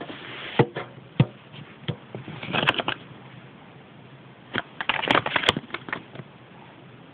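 A folded paper toy leaflet being unfolded and handled. A few sharp clicks come first, then two spells of paper crinkling, about two and a half seconds and five seconds in.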